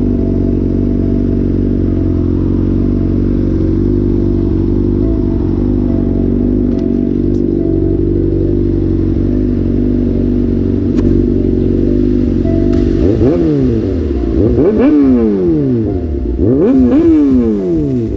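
Motorcycle engine idling steadily, then revved several times in quick blips near the end, the pitch rising and falling with each one.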